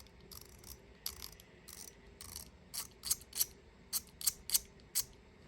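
Metal magnetic haptic fidget being worked by hand, its magnetic parts snapping and clicking: a string of sharp, irregular clicks that come faster in the second half.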